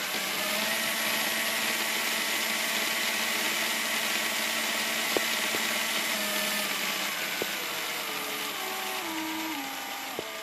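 LEGO Powered Up L-motor and its plastic gear train, a 24-tooth gear driving an 8-tooth gear with cross axles down into the bogies, whirring steadily. Near the end the pitch drops in several steps as the speed is turned down, and the drive runs down toward a stop.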